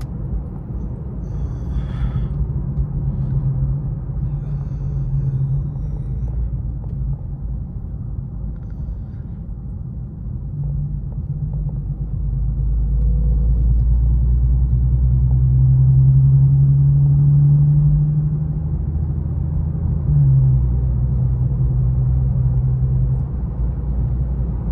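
Infiniti Q50's 3.7-litre V6 engine and tyre rumble heard from inside the cabin while driving. The engine note grows louder for several seconds past the middle, then falls back near the end.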